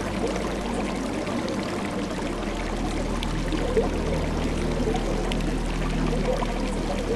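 Steady sound of running, pouring water like a stream, with a low steady hum underneath that shifts pitch once or twice.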